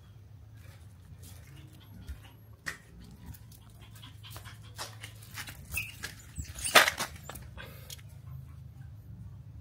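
A small puppy making soft sounds, with scattered knocks and scrapes of things being moved on a hard floor. A sharp clatter about seven seconds in is the loudest sound, and a steady low hum runs underneath.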